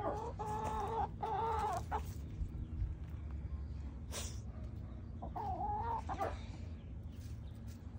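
Chickens calling: a long, wavering call in the first two seconds, broken once, and a shorter one about five and a half seconds in. A sharp click sounds about four seconds in, over a steady low rumble.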